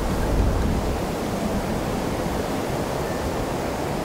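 Wind blowing steadily: an even rushing noise with an uneven low rumble underneath.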